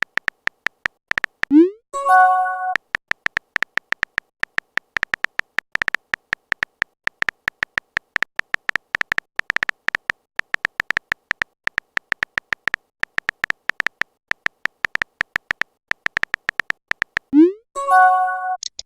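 Chat-app sound effects: a long run of fast, irregular typing clicks, each a short pitched tick, as messages are typed out. Twice, about two seconds in and again near the end, a message sound cuts in: a quick rising swoop followed by a short bright chime.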